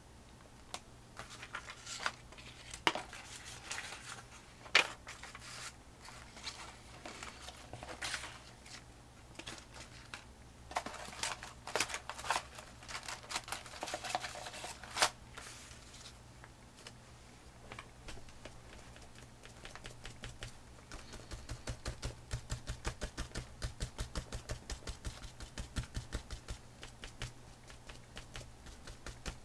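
Scattered clicks and rustles of plastic stencils being handled and sorted in a box, then a natural sponge dabbed rapidly, several soft taps a second, picking up and pouncing paint.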